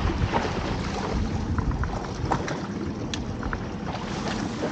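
Wind on the microphone and choppy sea water splashing and lapping against the hull of a small open boat, with scattered short slaps.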